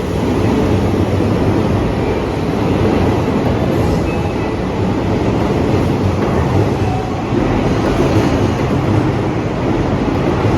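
Electric commuter train running past the station platform: a loud, steady rumble of wheels and traction motors.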